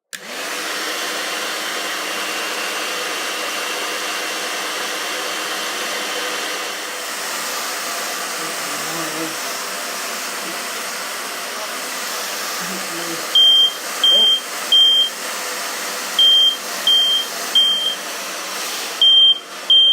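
A hair dryer blows steadily on a First Alert heat alarm. About 13 seconds in, the heat sets the alarm off and it sounds a high-pitched beep in the temporal-3 pattern: two groups of three beeps with a pause between, then the start of a third group. This shows that both its heat sensor and its sounder are working.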